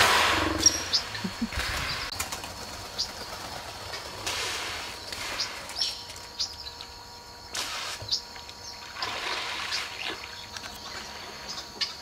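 Hippos in a pool: a deep hippo call fades out in the first moment, then come several short rushing sounds from the hippos in the water, with birds chirping briefly throughout.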